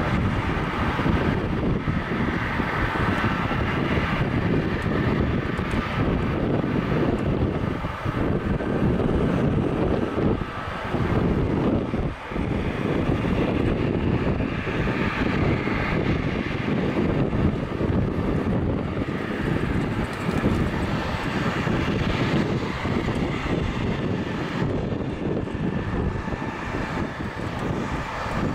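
Boeing C-17A Globemaster III's four Pratt & Whitney F117 turbofans running at taxi power: a steady jet rumble with a faint whine on top as the transport taxis past.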